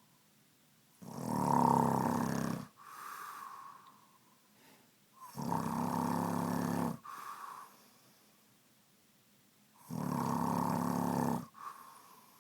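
A man snoring in his sleep: three loud, buzzing snores about four and a half seconds apart, each lasting about a second and a half and followed by a shorter, softer sound.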